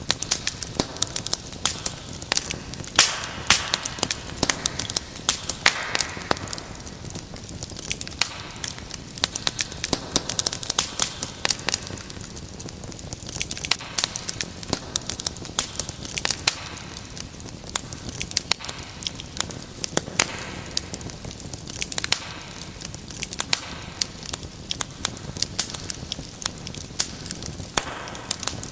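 Wood fire crackling steadily, with dense irregular pops and snaps over a soft hiss and an occasional louder crack.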